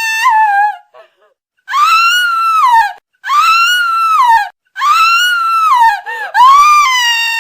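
A woman screaming: a run of loud, very high-pitched screams, each just over a second long, rising and then falling in pitch, with short breaks between them. One scream trails off at the start, four more follow, and the last runs on past the end.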